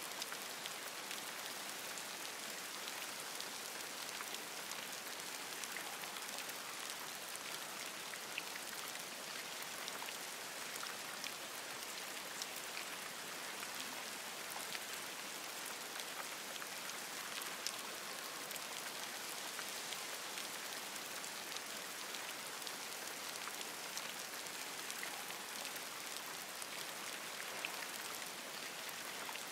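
Steady rain falling on forest leaves: an even hiss with many scattered, sharp drop ticks.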